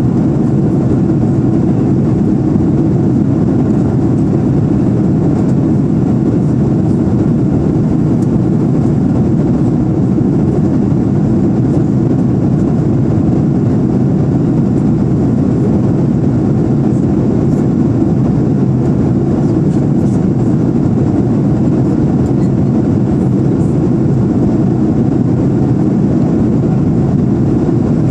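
Steady cabin noise of an Airbus A340-300 in flight, heard inside the cabin by the window over the wing: its CFM56 engines and the airflow make a dense, low, even rumble that does not change.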